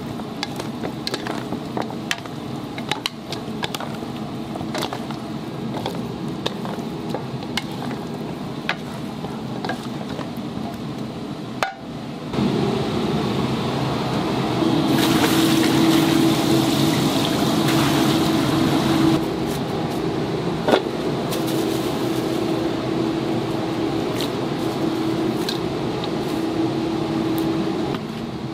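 Cooking at a fried-chicken stall: oil bubbling and sizzling in a cauldron, with frequent clinks of tools. About 12 seconds in the sound turns louder, a steady hiss with a low hum under it.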